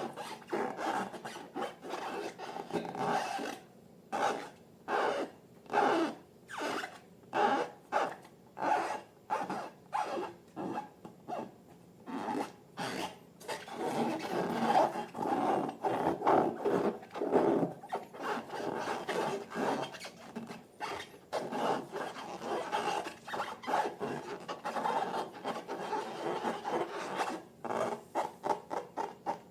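Slime being kneaded and squished by hand in rough, rubbing strokes, at about two a second at first, running together into a denser stretch midway, then quickening near the end.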